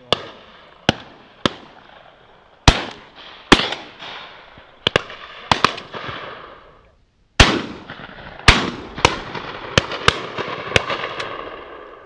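Shotguns firing at high driven gamebirds: well over a dozen shots in quick, uneven succession, some close and loud, others farther down the line. Each shot trails off in a rolling echo.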